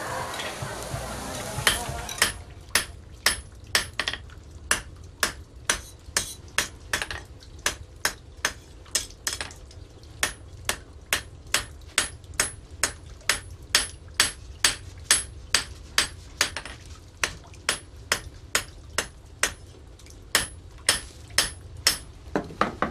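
A blacksmith's hand hammer striking metal held in tongs on an anvil, about two blows a second, each blow ringing briefly. The blows start about two seconds in and pause briefly a few times.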